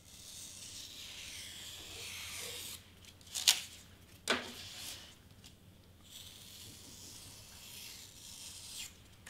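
Pen-style craft knife drawing through foam board, a scratchy hiss of the blade along the cut; the blade is over a year old and she suspects it needs replacing because it is not cutting all the way through. Two sharp clicks come about three and a half and four and a half seconds in as a cut-away scrap of board is lifted off, then the cutting hiss resumes.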